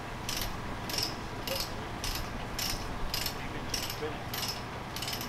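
Ratchet load binder being cranked to tighten a tie-down chain, its pawl clicking in an even rhythm of about two strokes a second.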